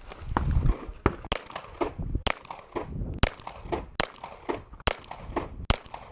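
Handgun shots fired in an irregular string during a practical pistol (USPSA) stage, about one every half second to a second, some louder than others.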